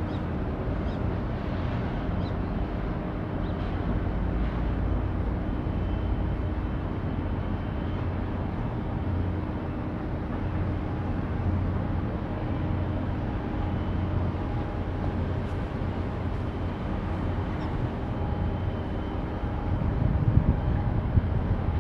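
Steady low rumble of harbour background noise with a faint steady hum, briefly louder near the end.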